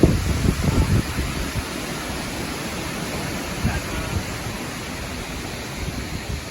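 Storm wind buffeting the phone's microphone: a steady rushing noise with low rumbling gusts, strongest in the first second.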